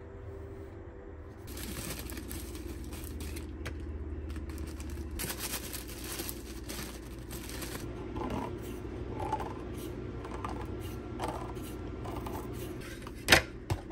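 Steady metallic scraping and grinding with small clicks as a can of tuna is opened with a manual can opener.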